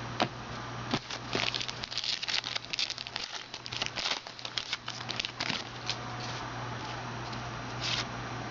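Crinkling and crackling of a trading-card pack wrapper being torn open and handled, a dense run of small crackles for several seconds that thins out near the end.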